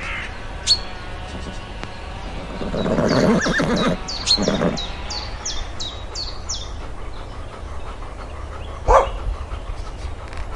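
Farm animal calls: a loud pitched call about three seconds in, then a shorter one, with a run of about eight quick, high, falling chirps. There is a sharp click near the end.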